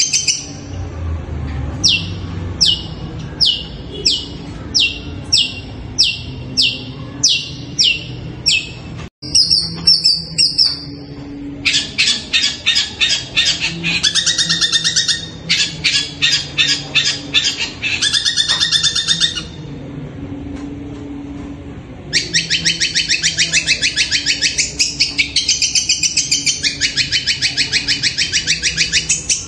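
Long-tailed shrike (cendet) singing. It opens with about eleven sharp, high notes, each falling in pitch, about one and a half a second. After a brief break comes a held high note, then long bursts of rapid chattering trills. The song is likened to the voice of a kuntilanak ghost.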